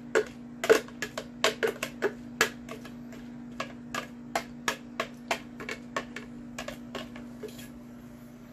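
A utensil tapping and scraping against a plastic food-chopper container to knock chopped carrots out into a bowl: a quick, irregular run of sharp clicks, about three a second, over a steady low hum.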